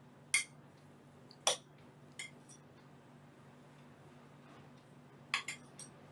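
Spoons clinking against a glass mixing bowl while pasta salad is tossed: a few sharp separate clinks in the first few seconds, then a quick run of three near the end, over soft stirring.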